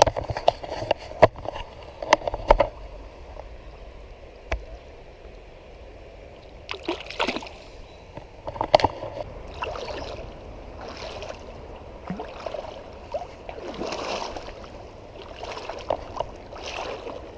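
Creek water sloshing and splashing in irregular bursts. A few sharp knocks come in the first few seconds.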